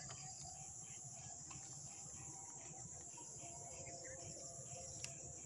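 Crickets chirping: a steady high-pitched drone with faint pulses repeating about three times a second, and a single sharp click about five seconds in.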